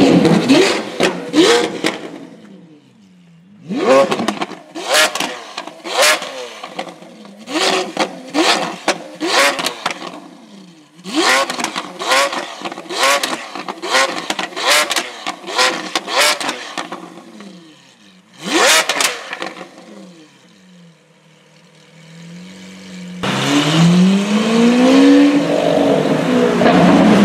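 Lamborghini Aventador's V12 revved hard again and again at a standstill, about one blip a second, each ending in sharp exhaust pops and crackles. After a short lull at idle, it pulls away under hard acceleration, the pitch rising steadily.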